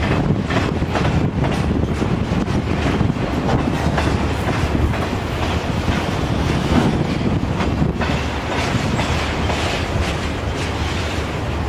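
Freight train of empty centerbeam flatcars rolling past, with a steady low rumble of steel wheels on rail and repeated clickety-clack as the wheels cross rail joints.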